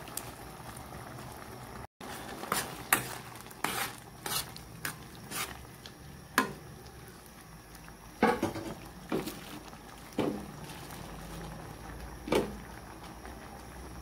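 A spoon stirring a simmering mung bean stew in a metal pot, knocking against the pot about a dozen times at irregular intervals over a steady low bubbling.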